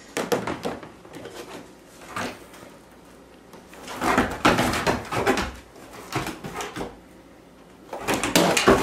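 A Bernese Mountain Dog tearing and chewing at a cardboard box, in short irregular bursts of ripping with pauses between.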